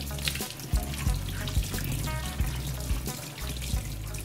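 Tap water running over an ear of corn into a stainless steel sink while hands rub the cob clean, mixed with background music that has a steady beat.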